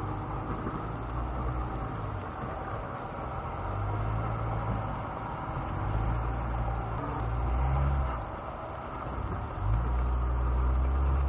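Lexus GX470's V8 engine running at low speed as the SUV crawls over rocks, its note swelling and easing several times with the throttle, heard from inside the cab.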